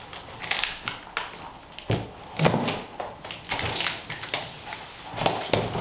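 Large cardboard shipping box being opened by hand: flaps and a side panel pulled and folded back, with scraping rustles of cardboard and a series of dull thumps and knocks.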